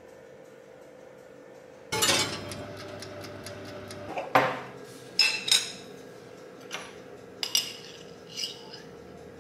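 Kitchenware clatter about two seconds in, then a run of sharp clinks and taps of a metal spoon against a glass jar and glass mug.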